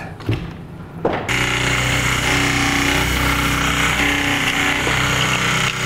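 Bosch reciprocating saw starting about a second in and then running steadily as it cuts, briefly easing off near the end.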